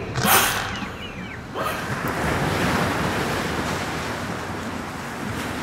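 Sea surf: a short wash of wave noise just after the start, then from about a second and a half in a steady rushing wash of waves.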